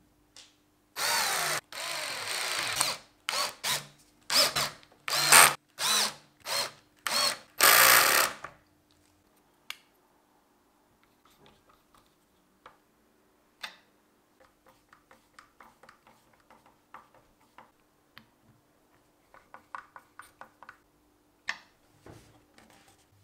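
Cordless drill running in a series of short bursts, about nine over some eight seconds, the first two longer; then only faint scattered clicks and taps.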